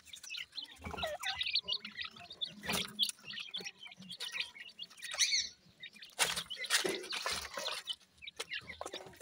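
Francolin chicks giving many short, high chirps while they forage, with brief scratchy, rustling noises in between as they peck among gravel and stones.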